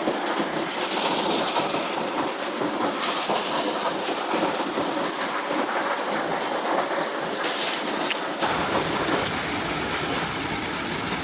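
Waterfall water rushing and splashing close by, a dense steady hiss. About eight seconds in the sound changes, with a deeper rumble coming in underneath.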